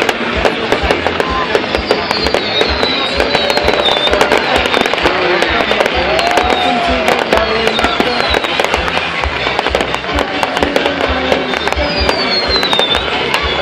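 Fireworks crackling densely with a rapid patter of sharp bangs, and several high whistles falling in pitch, over music played along with the display.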